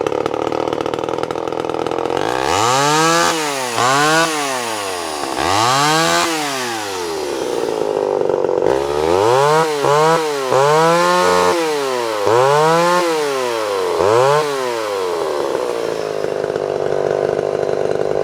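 Vintage Homelite XL12 chainsaw's single-cylinder two-stroke engine running: idling, then revved up and back down in a string of quick throttle blips, a few in the first half and a longer run of them in the middle, before settling back to a steady idle near the end.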